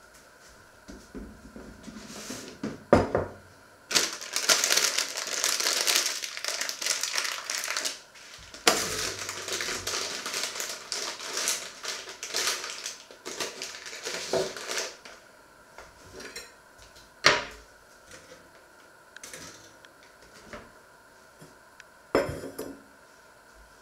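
Kitchen handling sounds: two long stretches of dry scraping and rustling in the first half, then scattered sharp knocks and clicks of dishes and utensils.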